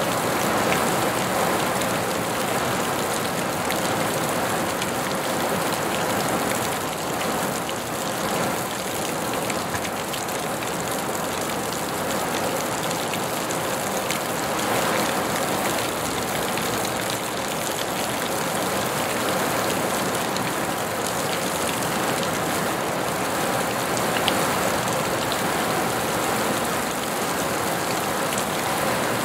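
Steady rain falling: an even, dense hiss with scattered sharper ticks of single drops.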